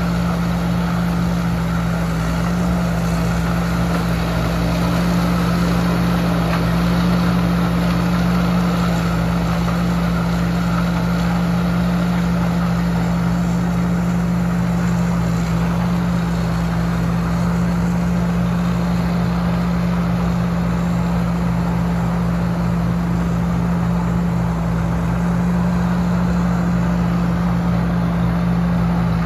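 Tamco S7000 tracked combine harvester running steadily while harvesting maize: a constant engine and machinery drone with a strong low hum that holds the same pitch and level throughout.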